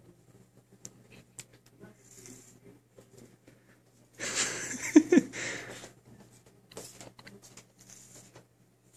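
A person's breathy, wheezy breathing. It comes in soft bursts, with a louder breathy burst and a short falling vocal sound about four to five seconds in, plus a few small clicks.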